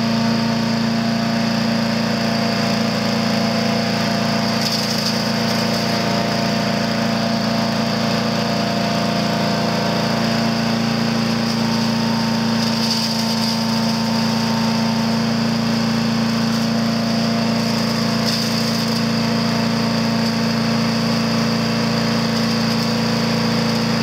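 Single-cylinder Predator 212cc (6.5 hp) engine of a new Harbor Freight chipper shredder running at a steady speed. Brief hissing bursts come a few times as dry leaves are fed into the hopper.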